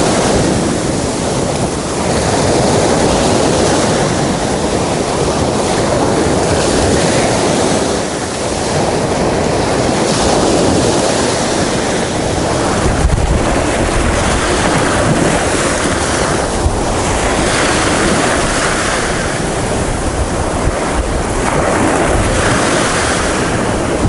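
Small waves breaking and washing up onto a sandy beach, surging and easing, with wind buffeting the microphone.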